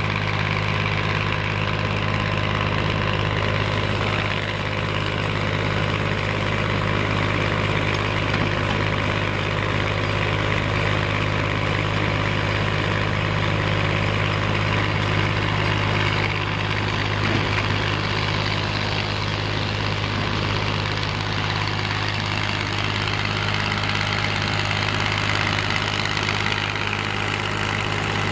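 Diesel engine of a Komatsu PC210LC excavator running steadily under load as it drives a rotary screening bucket sifting soil: an even, unbroken hum with a strong low drone.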